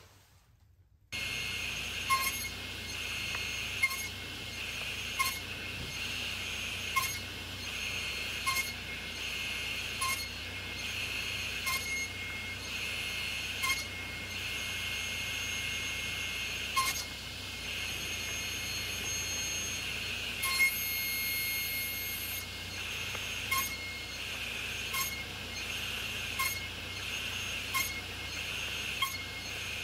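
Table saw running steadily, starting abruptly about a second in, while maple and black walnut stock is crosscut into short blocks on a sled. The blade's noise swells and fades in a regular rhythm, with a light knock about every one and a half to two seconds.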